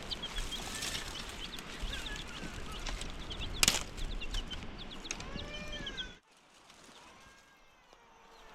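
Domestic chickens clucking and cheeping in a string of short high calls, with one longer arched call about five seconds in. The sound drops off abruptly about six seconds in, leaving only faint background.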